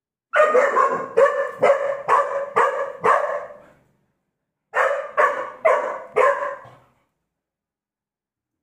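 Young golden retriever barking in quick runs, about two barks a second: seven barks, a short pause, then four more. It is guarding a treat from another dog.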